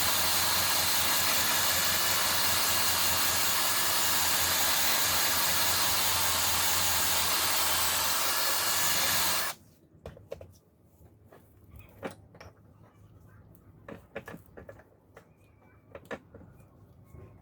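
An electric power tool runs steadily with a motor hum, then cuts off abruptly about nine and a half seconds in. Light clicks and knocks follow.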